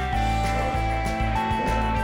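Background music: an instrumental track with held notes over a steady bass, with guitar.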